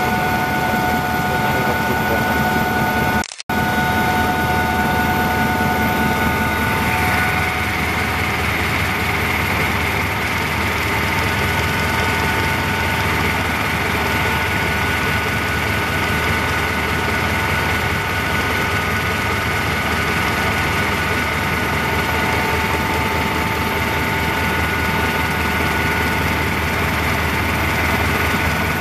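Passenger helicopter in cruise heard from inside the cabin: a loud, steady turbine and rotor drone with several high whining tones over a rushing noise. It cuts out for a split second about three seconds in, and the whine shifts slightly a few seconds later.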